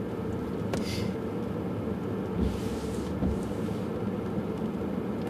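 Pickup truck engine idling, a steady low hum heard from inside the cab, with a brief soft rush of noise and a low bump around the middle.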